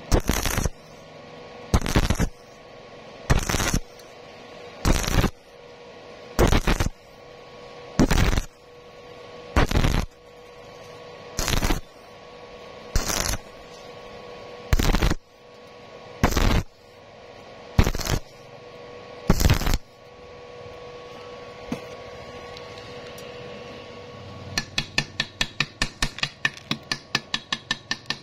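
Stick-welding arc from an E6013 electrode on thin steel tube, crackling in short bursts of under half a second about every one and a half seconds as the arc is struck and broken again and again, a stitch method that keeps thin metal from burning through. Near the end a chipping hammer taps rapidly on the bead, about four knocks a second, knocking off the slag.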